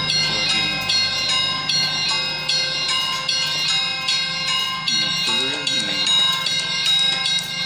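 Music of high ringing notes struck in a quick, even pattern over a low steady hum, with a faint voice briefly audible about five seconds in.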